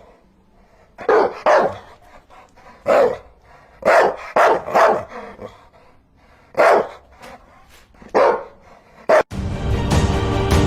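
A dog barking in short bursts of one to three barks, about nine barks in all. Music starts abruptly near the end.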